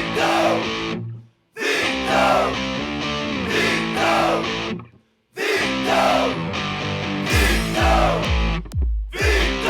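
Rock goal song with distorted electric guitar. The music stops dead for a moment twice, and a steady bass-drum beat comes back in about seven seconds in.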